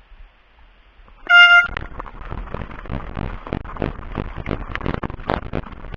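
A short, loud horn blast about a second in, one steady pitched tone. It is followed at once by a fast, irregular clatter of sharp clicks and knocks that keeps going.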